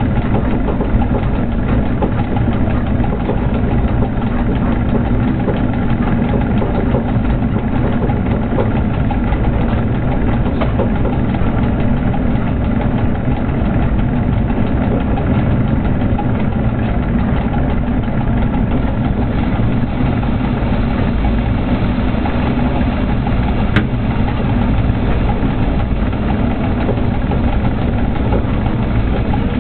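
Steady, loud running noise inside a freight locomotive's cab as the train travels along the track, a low rumble from the running gear and machinery with faint steady whines above it. There is a single sharp click near the end.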